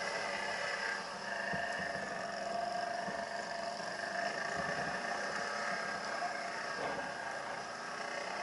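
ATV engine running steadily under throttle while riding through a muddy, waterlogged ditch, with a few dull knocks from the rough ground.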